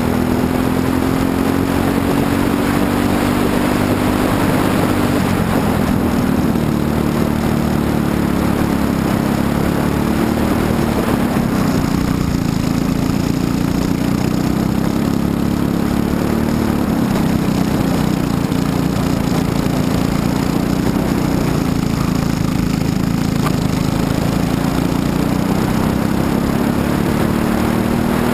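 Briggs & Stratton LO206 four-stroke single-cylinder kart engine running at race pace, its pitch rising and falling several times as the kart accelerates down straights and slows for corners.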